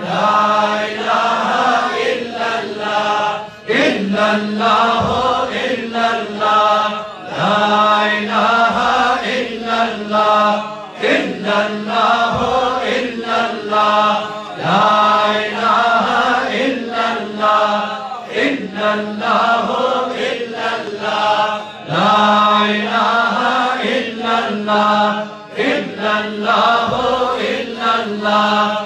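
Male voices chanting Sufi dhikr together: a devotional phrase repeated in a steady rhythm every few seconds, with one voice leading.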